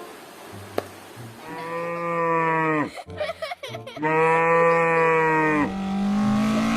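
Cow mooing twice, two long calls about a second apart, the first dropping in pitch as it ends.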